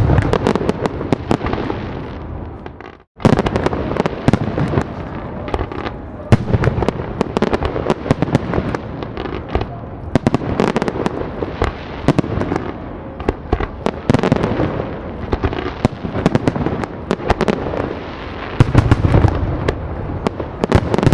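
Fireworks finale: a dense, continuous barrage of overlapping bangs and crackling bursts. About three seconds in it fades out briefly, then starts again abruptly at full strength.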